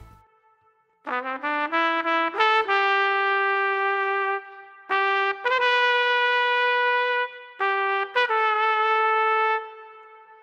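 Solo trumpet playing a slow melody in three phrases: a quick run of rising notes, then long held notes, the last one fading away.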